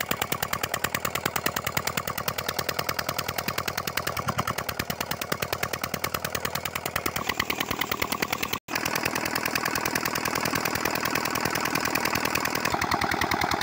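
Old "Peter"-type single-cylinder diesel engine running steadily under load, driving an irrigation water pump by a flat belt; its exhaust is a fast, even train of sharp beats. The sound cuts out for an instant about eight and a half seconds in.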